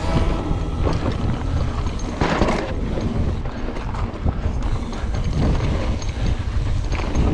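Wind buffeting the microphone over the rumble and rattle of a mountain bike rolling fast down a dirt and rock singletrack trail, with a louder clatter about two seconds in.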